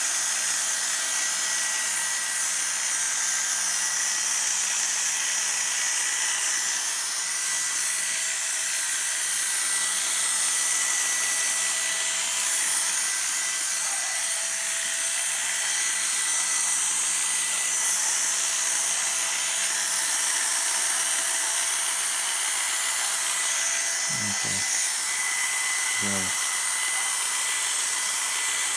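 Oster electric grooming clippers running continuously as they clip a miniature schnauzer's coat: a steady motor buzz, mostly high in pitch, with a thin steady whine.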